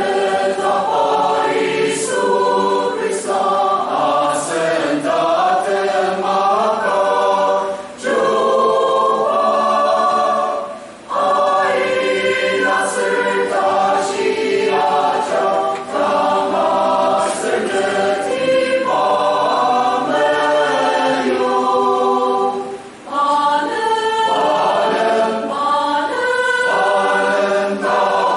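Mixed choir of men and women singing a hymn in parts, with short breaks between phrases a few times.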